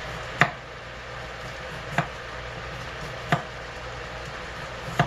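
Chef's knife slicing through small turnips and striking the cutting board: four sharp knocks about a second and a half apart, over a steady background hiss.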